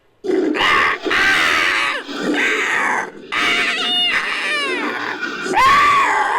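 Sound-design creature calls made by layering a human voice with animal recordings such as hawk and eagle calls. About four screeching cries follow one another, with a run of quick falling screeches about four seconds in.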